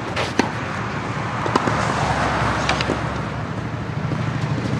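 Tennis ball struck by rackets in a rally on a clay court: a few sharp pops, one near the start, one about a second and a half in and one near the three-second mark, over a steady low rumble.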